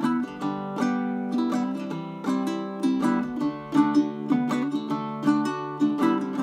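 Ukulele strummed, a steady run of chords.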